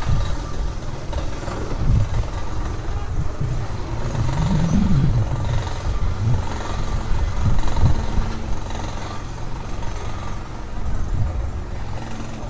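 Construction-site ambience: heavy vehicle and machinery engines running with a steady low rumble. One engine rises and falls in pitch a little over four seconds in.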